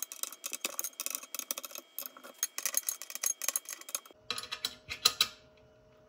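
Allen wrench turning a bolt at the base of a fiber laser's metal column: a quick, uneven run of small metallic clicks and ticks, with one sharper click about five seconds in.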